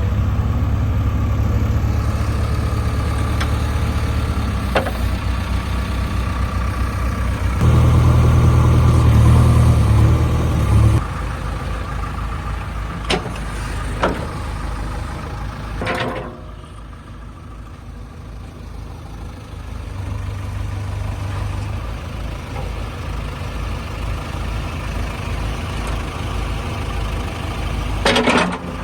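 JCB 3DX backhoe loader's diesel engine running, revving up for a few seconds about a third of the way in, then settling lower. A few sharp knocks ring out over it.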